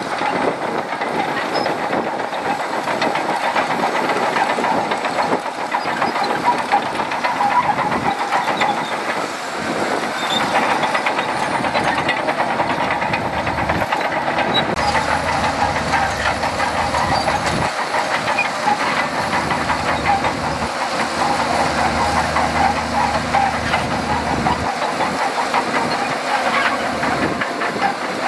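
Shantui DH17C2 crawler bulldozer working: its diesel engine running under load with a continuous metallic clatter of the steel tracks.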